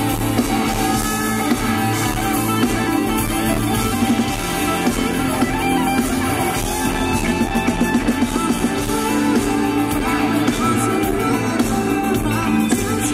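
Live rock band music led by electric guitar, with drums, playing steadily throughout.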